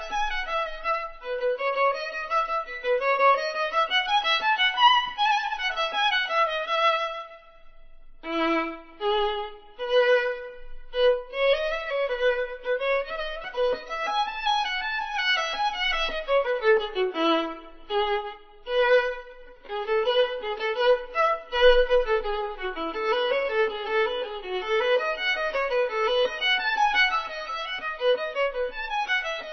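Instrumental background music: a solo violin plays a flowing melody, pausing briefly about eight seconds in.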